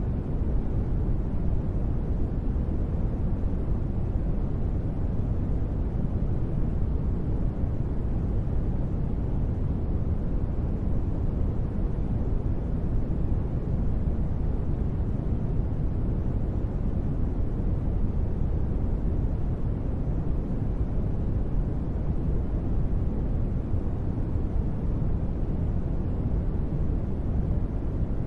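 Steady deep rumbling noise used as a space-ambience sleep sound, heavy in the bass and dull above, with no tones or changes.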